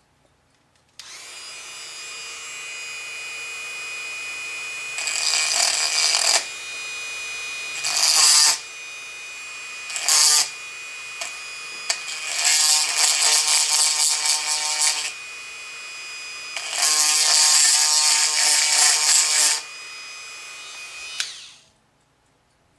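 Handheld rotary tool running at a low speed setting, its tapered bit grinding old epoxy out of a joint hole in a balsa-wood puppet armature. The motor starts about a second in with a steady whine. It grows louder in several grinding spells as the bit bites, and it stops shortly before the end.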